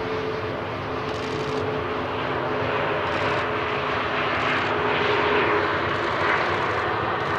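Embraer E190-E2 airliner's turbofan engines running as the jet rolls down the runway after landing: a steady rush of jet noise with a low hum, growing slightly louder in the second half as it passes.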